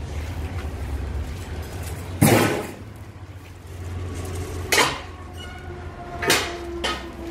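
Three sharp metallic clanks, a couple of seconds apart, the last followed by a lingering ringing tone, over a steady low hum.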